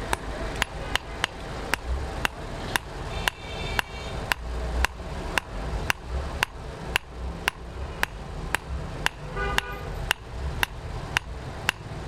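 Hammer blows on a handled hot chisel held against a red-hot steel bar on an anvil, struck in a steady rhythm of about two sharp metallic strikes a second. A short horn-like tone sounds twice in the background, about three seconds in and again near the end.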